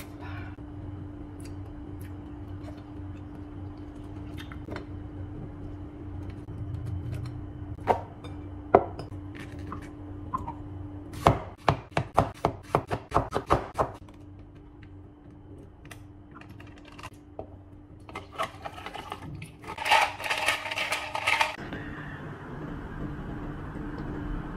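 Kitchen knife cutting strawberries on a cutting board: a quick run of about a dozen sharp chops lasting a couple of seconds, with a few separate knocks before it. Near the end there is a rustling burst, all over a steady low hum.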